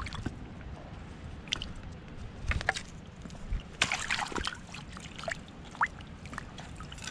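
Water splashing and dripping in short irregular bursts, busiest about four seconds in, over a low steady rumble.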